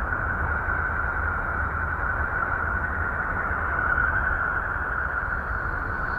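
Sonified spacecraft radio or plasma-wave recording: a steady dense hiss with a brighter band held at one pitch and a low rumble beneath. A faint higher tone slowly rises near the end.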